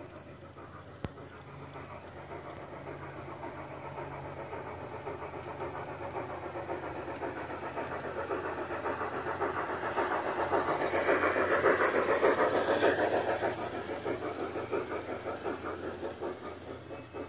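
G-scale model steam locomotive and its passenger coaches running on garden-railway track, a rapid rhythmic running sound that grows louder as the train approaches, peaks about twelve seconds in as it passes close by, then fades. A single sharp click about a second in.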